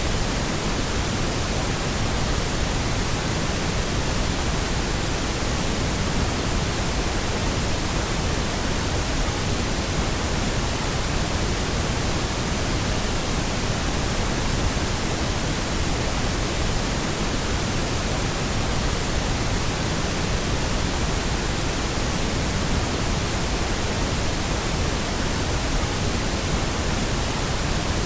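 Steady synthetic pink noise: an even hiss spread over all pitches, with no change in level.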